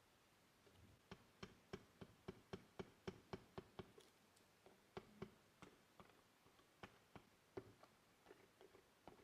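Quick light taps of an oil pastel dabbing on paper, about three or four a second, some harder than others, stopping and starting a little toward the end.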